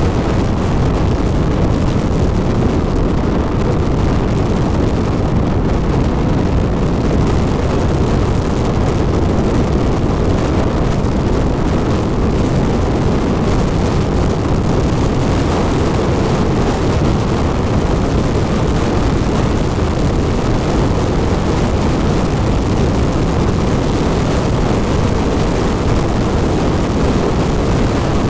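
Steady, loud wind and road rush from a motorcycle being ridden at speed, even throughout with no changes.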